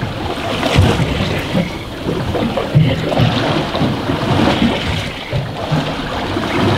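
Wind gusting on the microphone over the wash of choppy sea water around an open boat.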